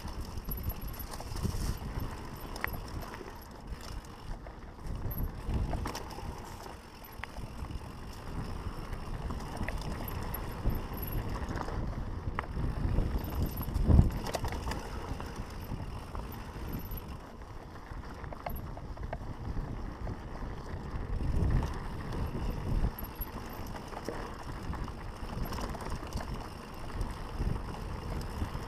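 Mountain bike riding downhill on a dirt singletrack: tyres rolling over the dirt, with the bike rattling and knocking over bumps and some wind on the microphone. About halfway through, one sharp thump, the loudest sound, as the bike takes a hard hit.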